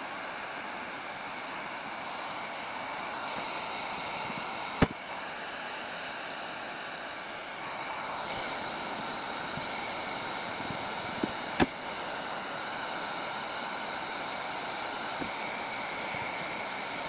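Electric heat gun blowing steadily as it melts an HDPE filler stick into the plastic repair. Two sharp clicks sound about seven seconds apart.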